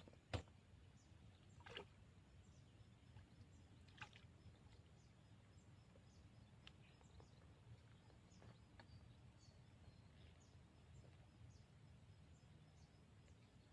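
Near silence outdoors: faint short high chirps repeating about once a second over a low steady hum, with a few sharp clicks, the loudest about half a second in.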